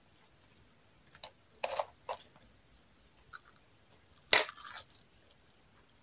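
Metal fork clinking and scraping against a plate of chips and fried chicken, in a handful of short, separate clinks; the loudest comes a little past four seconds in.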